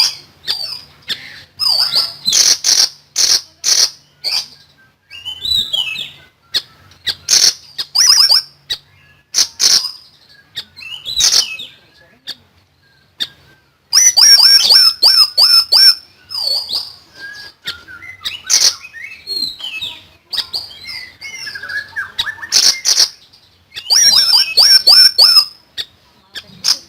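Siri-siri songbird singing in rapid, high-pitched chirps and trills, delivered in quick bursts with short pauses; the fastest, loudest runs come about halfway through and again near the end.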